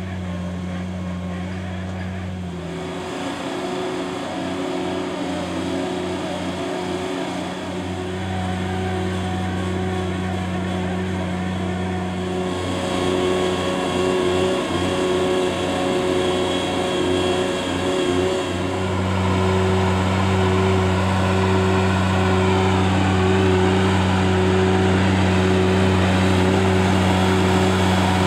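Engine of a Gehl mini loader running steadily while its trencher attachment chews through soil. It gets louder in the second half.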